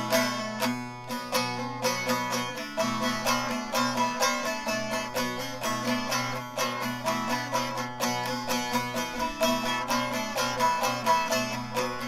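Solo bağlama (long-necked Turkish saz) playing an instrumental passage: a quick, even run of plucked notes over steadily ringing lower drone strings.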